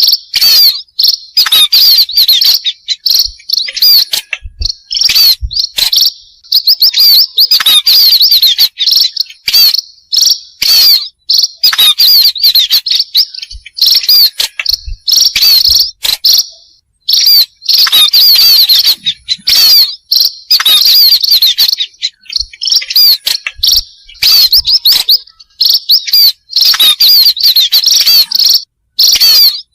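Lure recording of pipit (munia) calls: many rapid, high-pitched chirps packed together, coming in loud bursts of a second or two with short gaps between.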